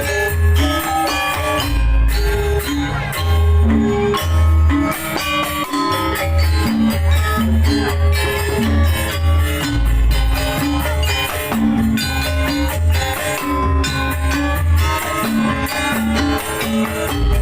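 Janger opening music played by the ensemble: a rhythmic piece of tuned percussion melody over a heavy, pulsing bass line, with shaken and struck percussion.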